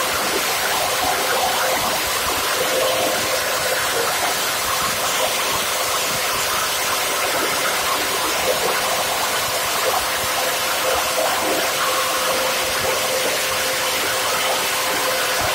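Plastic scrap grinder for PET bottles running steadily: an even rushing noise with a constant whine, and irregular crunching as bottles fed into its hopper are cut up by the rotating blades.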